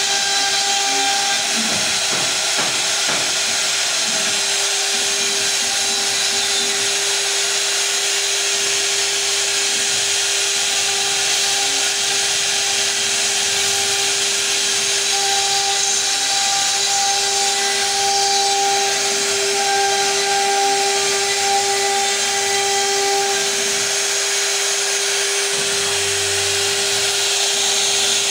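CNC router spindle running at speed while its carving bit cuts a relief pattern into a wooden panel: a steady whine with the hiss of the cut, and a higher tone that comes and goes.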